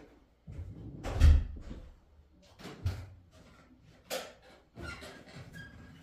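Irregular knocks, thumps and scrapes of things being handled and moved about, the loudest about a second in.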